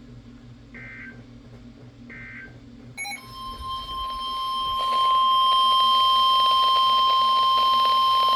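Two short buzzing bursts of SAME digital header data, then the NOAA Weather Radio 1050 Hz warning alarm tone starting about three seconds in. It is a single steady tone that grows louder over the next two seconds and then holds, signalling a new warning.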